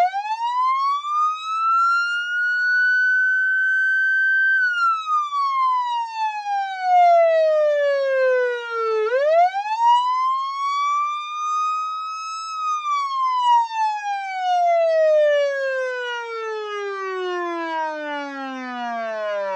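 Police car siren wailing in slow cycles: a rising glide for a few seconds, a brief hold, a long fall, then a second rise and hold, ending in a long descending wind-down. It sounds as the countdown timer's alarm at zero.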